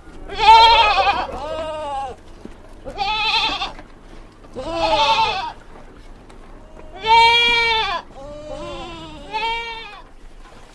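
A farm animal calling again and again: about seven quavering calls in quick succession, each under a second long, with short gaps between them.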